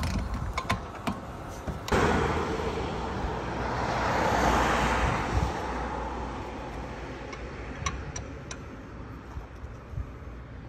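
A passing vehicle: road and engine noise swelling to a peak and slowly fading over several seconds, over a steady low hum, with a few faint clicks near the end.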